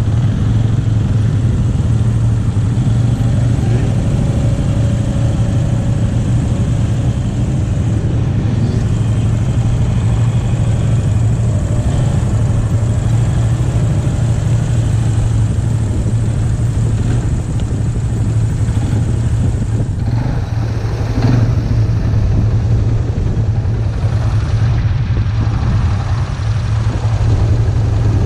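Polaris Magnum 325 ATV's single-cylinder four-stroke engine idling steadily close by.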